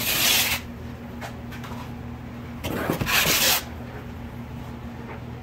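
Cardboard packaging being rummaged through in a box: two bursts of rustling and scraping, one right at the start and a longer one about three seconds in, over a steady low hum.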